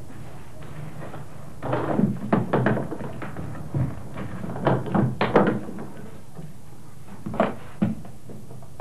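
Clothes being shoved into a hard briefcase and its lid pushed down, a run of knocks and rustling, then two sharp clicks near the end as the case's latches snap shut. A steady low hum lies under it all.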